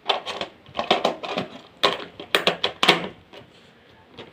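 Kitchenware being handled: a string of short, irregular knocks and clatters, quieter near the end.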